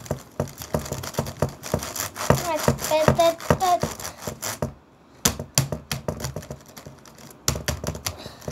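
Close-up clattering, tapping and rustling of hands handling objects near the microphone, many quick knocks throughout with a short lull about five seconds in. A child's voice sounds briefly about two to four seconds in.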